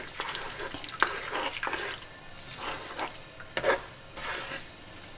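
Liquid pork blood poured from a stainless steel bowl into a wok of pork and green papaya, while a spatula stirs it in, scraping and knocking on the pan at irregular moments. The blood is stirred continuously to keep it from clotting.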